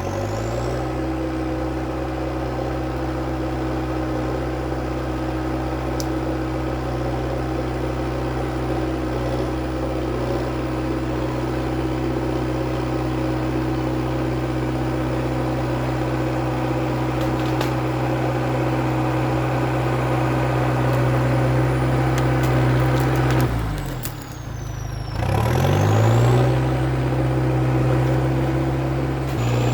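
International Harvester TD8E crawler dozer's diesel engine running at steady revs, with a high whine alongside. The revs climb in the first second, and about 24 s in they sag sharply and recover within a couple of seconds.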